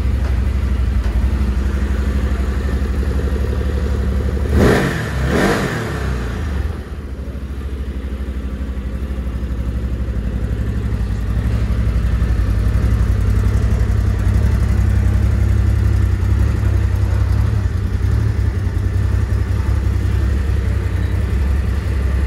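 Stels ATV 850G Guepard quad's V-twin engine idling steadily, with two quick throttle blips about four and a half seconds in, each revving up and dropping back to idle.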